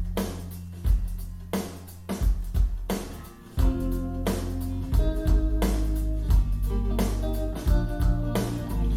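Instrumental passage of a pop song, with a steady drum beat over held bass and pitched instrument notes, and no singing.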